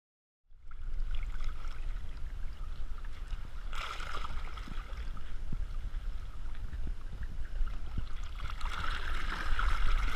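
Choppy sea water sloshing against a waterproof action camera at the surface, with a heavy low rumble of wind and water on the housing. It begins about half a second in.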